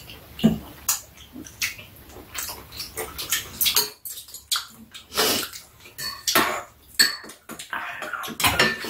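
Metal chopsticks and spoons clinking and scraping against bowls and pots during a meal, in short irregular clicks, with a few brief wet eating noises in between.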